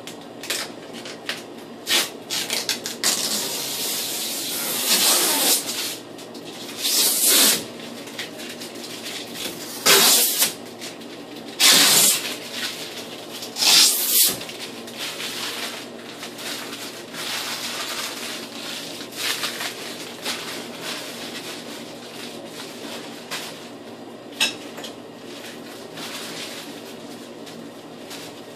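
Hand cleaning a bathroom mirror: about five loud, rough strokes a couple of seconds apart in the first half, then only lighter rubbing and scattered clicks over a steady low hum.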